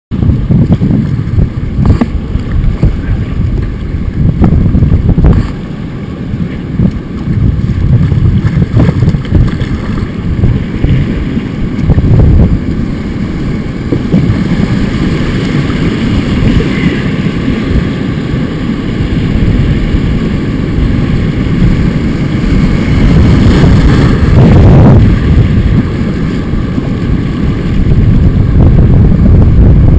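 Wind rumbling on the microphone over the rush of river rapids, with a few short splashes of paddle strokes.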